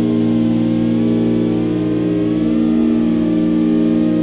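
iFlight Chimera 4 quadcopter's brushless motors and propellers whirring in flight, a steady multi-toned whine whose higher tones waver as the throttle shifts.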